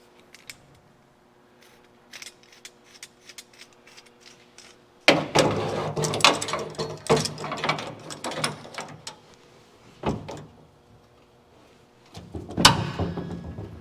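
Metal parts clanking and rattling as a jig is worked into place on the car body's drip rails. The sound comes in two bursts, one about five seconds in and another near the end, with a single knock between them, over a faint steady hum.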